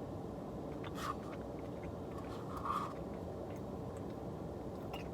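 Steady hum of a car's air conditioning with the engine on, with two small eating sounds about one and three seconds in.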